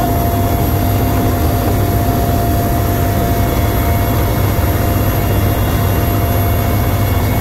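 Mi-8MTV-1 helicopter heard from inside its cabin: the twin turboshaft engines and rotor make a loud, steady, deep drone with a high whine held on top, unchanging throughout.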